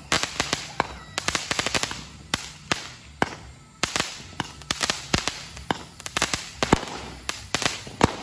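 Consumer aerial fireworks going off in quick succession: an irregular stream of sharp pops and bangs, with runs of rapid crackling from the bursting stars.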